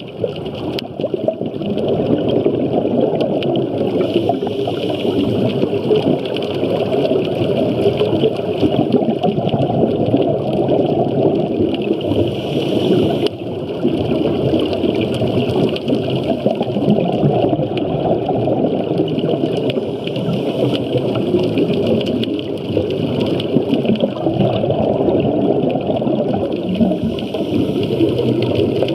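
Steady muffled rush of water recorded underwater on a scuba dive.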